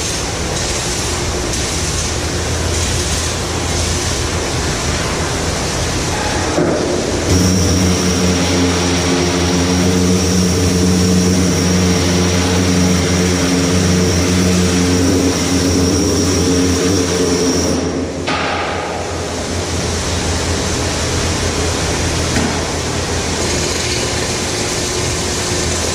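Steady engine drone mixed with wind and sea noise. About a quarter of the way in, a louder, even engine hum with a thin high whine comes in, and it drops away about two-thirds of the way through.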